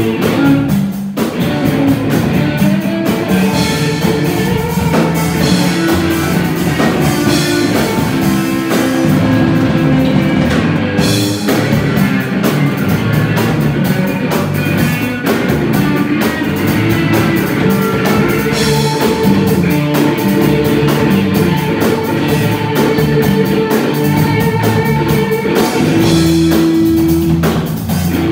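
Live rock band playing: amplified electric guitar over a drum kit, continuous and loud.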